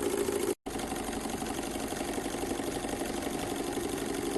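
Small Stirling engine running steadily, belt-driving a PC-case-fan generator: a fast, even mechanical clatter over a steady hum. The sound cuts out for an instant about half a second in, then carries on slightly quieter.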